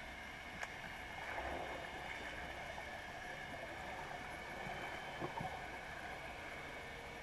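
Muffled underwater ambience recorded by a GoPro Hero 3 in its waterproof housing about 15 feet down in a lake. It is a steady low hiss with faint steady tones, a small click about half a second in, and a few faint taps around five seconds.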